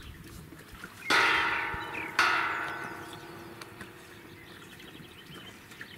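Two metallic clangs about a second apart, each ringing and dying away over a second or so, as of a tubular steel farm gate being knocked.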